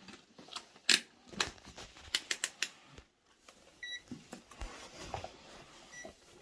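Several sharp plastic clicks, then a short electronic beep about four seconds in and a fainter one near the end, from a test meter being used to check the boiler tank's cartridge fuses.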